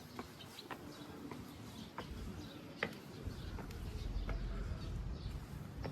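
Outdoor ambience: scattered short chirps and sharp clicks, with a low rumble that grows louder about three seconds in.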